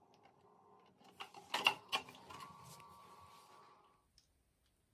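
Electric pet water fountain running with a steady hum, with a cluster of sharp plastic knocks and clatter between about one and two and a half seconds in as the cat works at the fountain's clear plastic parts. The hum and all other sound stop suddenly about four seconds in.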